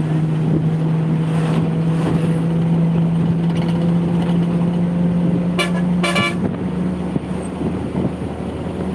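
A long, low, steady horn blast lasting about six seconds, with two short higher toots about half a second apart near its end, over steady wind and engine noise.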